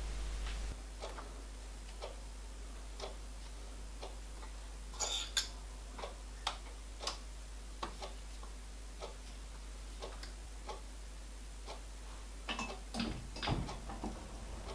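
Light clicks and taps of a steel template and dial test indicator being handled and set against a lathe's cross slide, with a soft tick about once a second and small bunches of taps about five seconds in and near the end.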